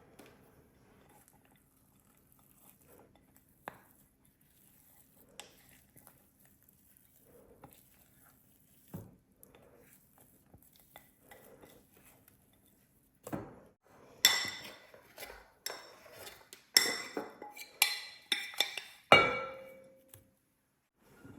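Quiet handling noises, then a run of loud clinks and clatters of kitchen dishes and utensils with a ringing tail, starting about two thirds of the way in.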